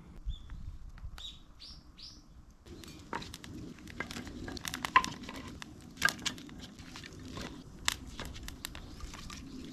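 A few short, falling bird chirps, then a wood fire in a fire pit crackling with irregular sharp pops over a low hiss. The loudest pop comes about five seconds in.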